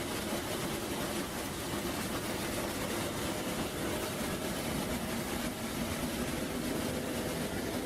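Steady machinery noise, an even rumble with a faint steady hum, like a heavy engine running.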